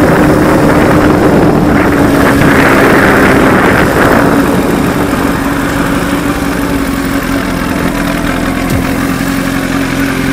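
Honda CBR1000RR sportbike's inline-four engine running as the bike is ridden slowly. It is louder for about the first four seconds, then settles and runs steadily a little quieter.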